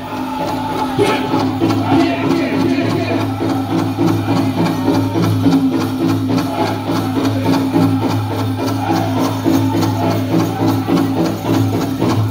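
Powwow drum group performing a chicken dance song: a steady fast beat on a big hand drum under men's high-pitched singing, with a jingling rattle over it, stopping abruptly right at the end.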